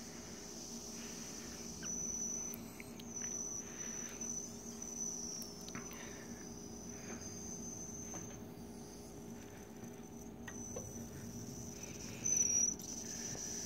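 Jensen Model 70 toy steam engine's whistle valve, left open, letting residual steam escape from the still-hot boiler as a thin, high, faint whistle. It comes and goes and swells briefly near the end as the pressure bleeds down. Soft rubbing of a cloth on the engine's base runs under it.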